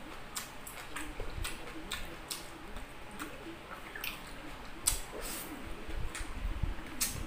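Close-up chewing and wet mouth smacks of a person eating rice and boiled chicken by hand, irregular clicks with a sharper smack about five seconds in.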